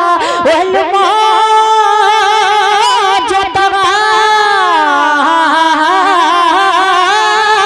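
A boy singing a naat into a microphone, drawing out long melismatic notes with a wavering vibrato; about four seconds in, the melody glides slowly downward.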